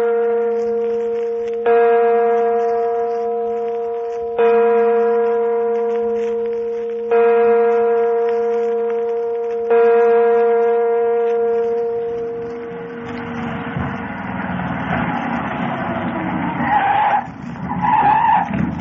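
A deep bell tolls four times, about every two and a half seconds, each stroke ringing on and slowly fading. From about twelve seconds in, the sound effect of a car driving up and pulling to a stop follows, with a short squeal near the end.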